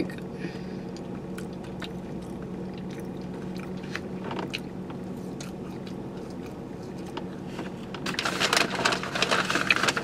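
Close-up biting and chewing of a thick-cut french fry, soft mouth clicks over a steady low hum, the chewing growing louder near the end.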